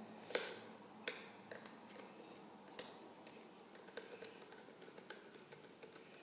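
Sharp clicks and light taps of metal as an old wall receptacle and its stiff wires are worked out of a metal electrical box. The two clearest clicks come about a third of a second and a second in, followed by fainter scattered ticks.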